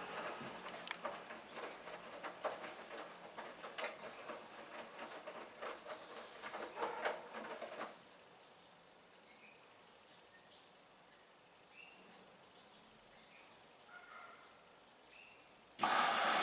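Hoover front-loading washing machine drum turning the wet laundry, a sloshing clatter that stops about eight seconds in, with a faint high chirp every second or two. A loud steady rushing noise starts just before the end.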